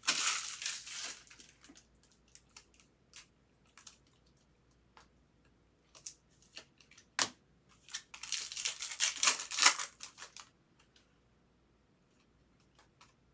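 Foil wrappers of trading-card packs being torn open and crinkled, in two bursts, at the start and about eight seconds in, with light clicks of cards being handled in between.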